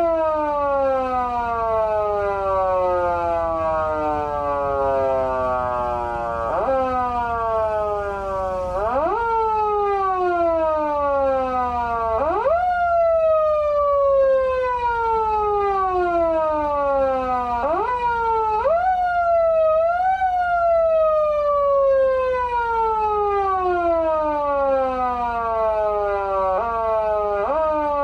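Patlite SAP-500BK-PV siren amplifier's foot-siren tone: the pitch jumps up quickly with each press of the pedal, then slowly winds down like a mechanical siren. The presses come at uneven intervals, sometimes twice in quick succession before the tone falls.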